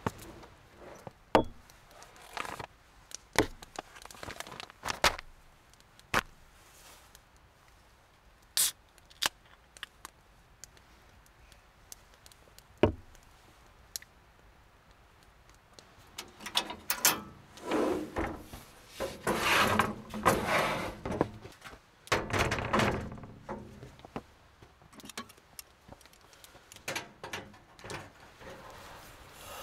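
Camp-kitchen handling: scattered sharp knocks and clunks of food, a can and utensils set down on a wooden board, then, past the middle, a longer run of clattering and rustling as a two-burner camp stove is handled and set up.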